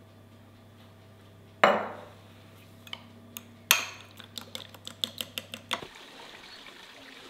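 Dishes and metal cutlery clattering: two loud clanks that ring on, then a quick run of lighter clinks.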